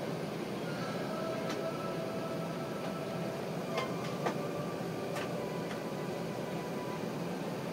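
Steady rumble and hiss inside the cabin of an Airbus A380 taxiing after landing, with a faint high whine held for several seconds and a few light clicks, the loudest two knocks about four seconds in.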